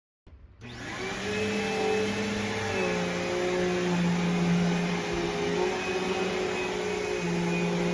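Vacuum cleaner switched on, its motor spinning up in under a second and then running steadily with a hum that shifts slightly in pitch.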